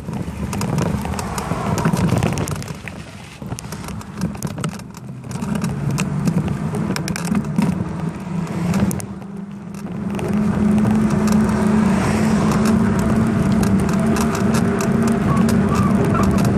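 Wind rushing over a bicycle-mounted camera's microphone as the bike rides along, with frequent rattles and clicks from the bike and mount. About ten seconds in, a steadier, louder hum with a few held tones joins in.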